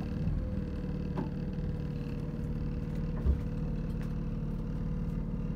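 A small sailboat's auxiliary motor running steadily at low speed as the boat motors in to dock, with one brief low thump about three seconds in.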